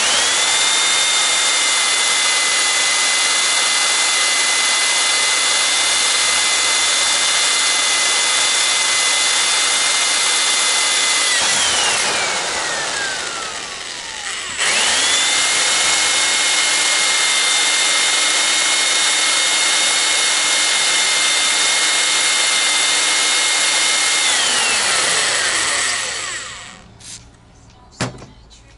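An electric power tool running at full speed twice, about ten seconds each time, with a steady motor whine over a loud rushing noise. Each run ends with the whine falling in pitch as the motor coasts down, and a couple of knocks come near the end.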